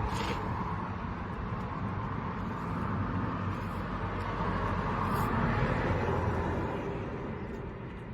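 Steady outdoor background noise, a low rumble with hiss that swells in the middle and fades near the end, like traffic going by.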